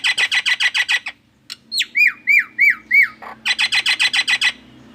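Pet myna mimicking a car anti-theft alarm. A fast run of pulsed notes, about a dozen a second, is followed by four whistled notes that rise and swoop down in pitch, then a second fast pulsed run that cuts off near the end.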